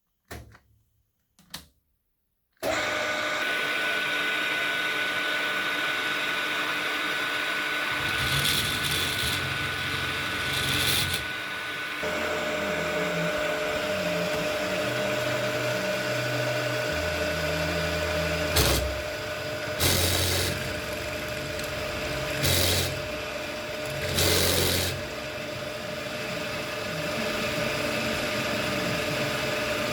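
An electric power tool starts about three seconds in and runs steadily with a constant whine, with several short, louder surges as it works.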